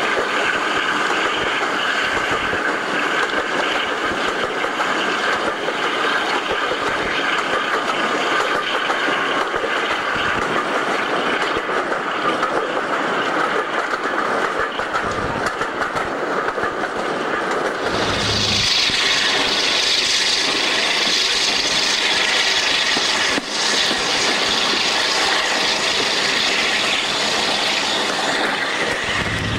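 Passenger train running, heard from an open carriage window: a steady rumble of wheels on the rails with some clickety-clack and wind rush. About two thirds of the way through the sound changes abruptly to a brighter, hissier rail noise.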